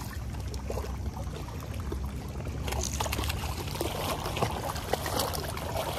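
Water splashing and lapping as a small hooked bass thrashes at the surface on light line, with a steady low wind rumble on the microphone for the first few seconds.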